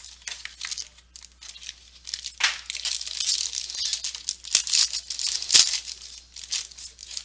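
Plastic and paper packaging of a trading card box being torn open and handled: continual rustling and crinkling with a few sharper tearing snaps.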